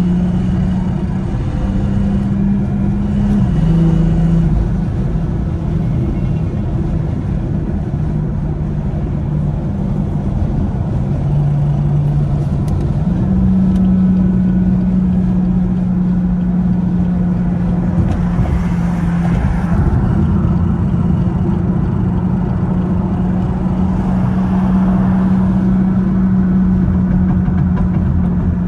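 BMW 440i's B58 turbocharged inline-six running at a steady cruise, a constant droning note that steps up and down in pitch a few times with throttle and gear changes, over continuous road rumble.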